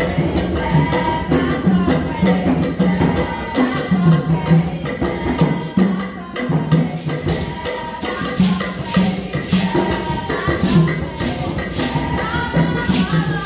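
Live traditional Edo dance music: drums and rattling hand percussion playing a steady rhythm.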